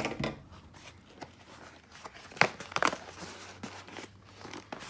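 An Amazon shipping package being opened by hand: irregular crinkling and sharp tearing of the packaging, loudest about two and a half seconds in.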